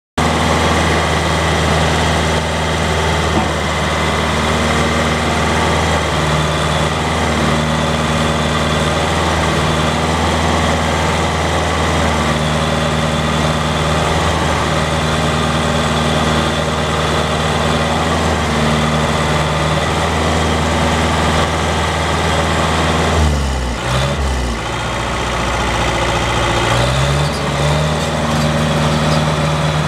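Caterpillar D3C LGP crawler dozer's diesel engine running steadily. About 23 seconds in the revs drop sharply, then climb back up over the next few seconds.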